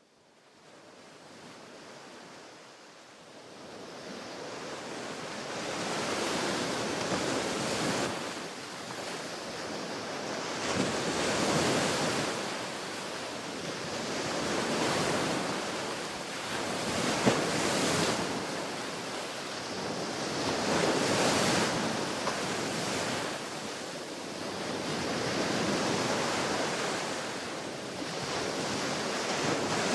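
Ocean waves breaking and washing up on a beach, fading in from silence over the first few seconds, then swelling and ebbing every few seconds.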